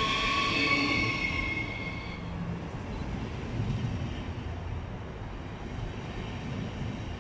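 Siemens Desiro HC electric multiple unit in RRX livery moving past close by. A high electric whine from its traction equipment fades out about two seconds in, over a steady low rumble of wheels on the rails.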